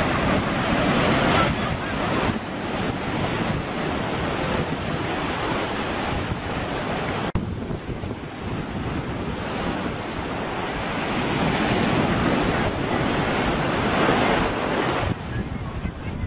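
Small surf breaking and washing, with wind buffeting the microphone. The sound drops abruptly about seven seconds in.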